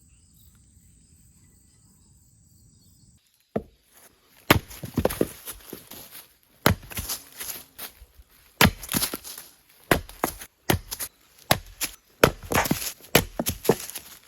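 All-steel forged axe chopping and splitting firewood: a string of about ten sharp blows, each followed by the crack and splintering of the wood, coming every one to two seconds. They begin after a few seconds of faint hum.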